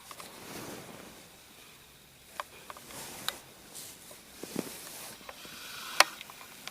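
Soft rustling with a few scattered sharp clicks and taps, the sharpest about six seconds in.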